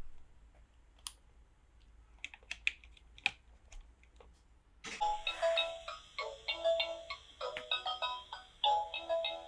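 A few light plastic clicks and taps, then, about five seconds in, a bright electronic ringtone-like melody of short repeated notes starts and plays on.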